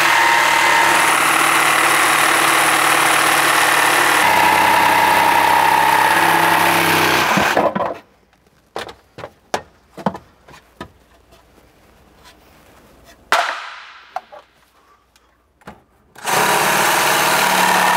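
Cordless jigsaw running steadily as it cuts the sink opening in a countertop, its pitch shifting slightly about four seconds in, then stopping about seven and a half seconds in. Scattered light knocks and clicks follow as the cut-out piece and tools are handled. The saw runs again for about two seconds near the end.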